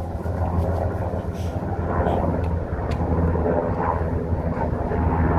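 A steady low mechanical hum runs throughout, with a single sharp click about three seconds in.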